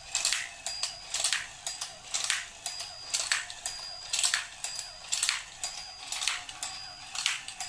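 Battery-powered toy domino train laying plastic domino tiles as it drives. It makes a steady run of light plastic clicks, about two a second, as each tile is fed out of its stack and set down.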